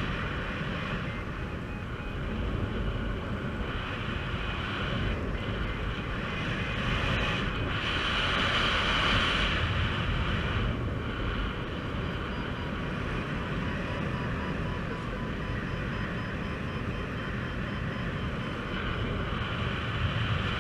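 Steady rush of airflow buffeting the microphone of a paraglider in flight, swelling a little about eight seconds in.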